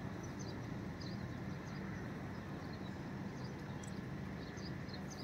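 Small birds chirping, many short high chirps through the whole stretch, over a steady low background rumble.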